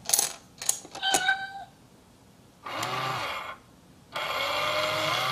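Battery-powered cat coin bank toy. A few sharp clicks come first as a coin is set on its lid. Then its small motor hums twice while it plays recorded meows as the cat's paw comes out to sweep the coin inside.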